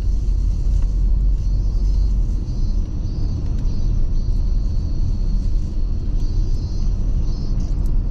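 Steady low rumble of a car in motion, road and engine noise heard inside the cabin, with music playing faintly underneath.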